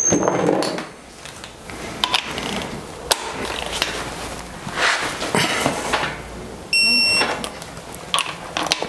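Electronic torque wrench tightening a connecting-rod nut, with a few clicks and knocks of the socket on the nut, then a single loud beep lasting about half a second near the end as it signals that the set torque of 55 ft-lb is reached.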